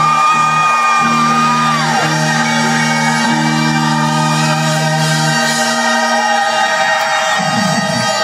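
Rock band playing live through the PA, loud, with long held bass and keyboard or guitar notes that change every second or two, and voices shouting in the crowd.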